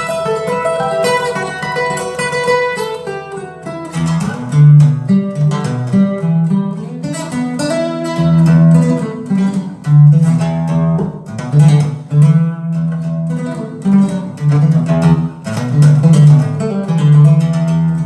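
Instrumental break of a song played back through Wharfedale Diamond 220 bookshelf speakers: plucked guitar notes, then strummed guitar over a strong bass line that comes in about four seconds in.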